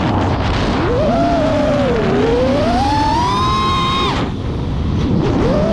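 FPV quadcopter's brushless motors and propellers whining, the pitch rising and falling with the throttle. Throttle is chopped sharply about four seconds in, then the motors spool back up near the end.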